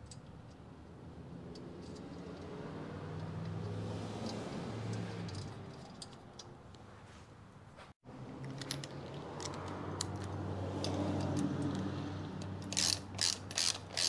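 Ratchet wrench clicking through a quick run of short back-and-forth strokes, about three a second, starting near the end. Before it there are scattered light clicks of parts being handled over a low steady hum.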